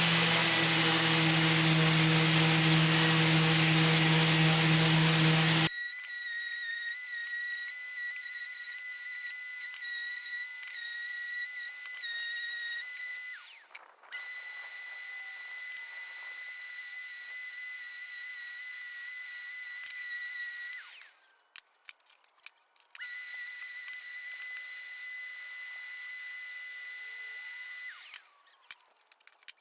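High-pitched whine of a small high-speed power tool, run in three spells of several seconds each with short stops between. A loud stretch of music fills the first six seconds.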